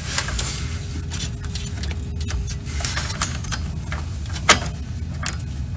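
Plastic clicks and rattles of a CPU cooler's fasteners being pressed and twisted to lock it onto the motherboard, with one sharper click about four and a half seconds in, over a steady low hum.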